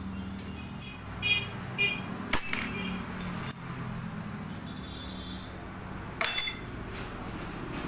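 Steel hand tools set down on a plastic tarp: a few sharp metallic clinks, the loudest about two and a half seconds in and another just after six seconds, as a spark-plug box spanner and a 13/14 spanner are laid out. A steady low hum runs underneath.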